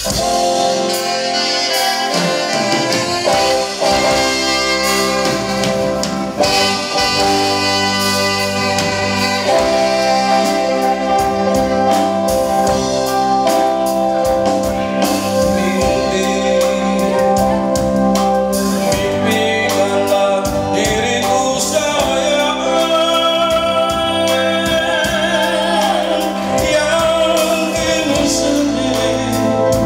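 Live pop band playing: a man singing over electric guitars, keyboard, drums and saxophone.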